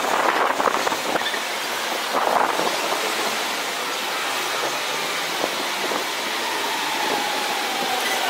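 Shanghai Maglev train approaching at speed: a steady rushing hiss of air, with a whine that falls in pitch setting in near the end as it draws close.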